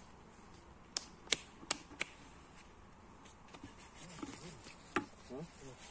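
A yellow plastic bucket of crumbly bait being handled: four sharp taps about a third of a second apart, then one more a few seconds later.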